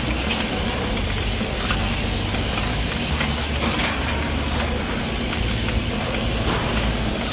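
Steady background noise of a supermarket aisle: a low hum and even hiss, with faint brief rustles.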